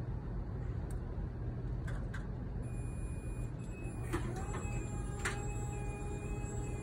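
MEC Crossover 2659ERT electric scissor lift's DC hydraulic pump motor starting with a click about four seconds in, then a steady whine as the platform rises. A steady low hum runs underneath throughout, and there is a second click a second later.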